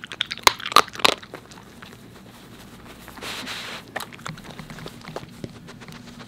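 A corgi crunching and chewing dry treats while foraging in a snuffle mat, with a few sharp crunches in the first second or so. About three seconds in comes a short sniff, then quieter snuffling among the mat's strips.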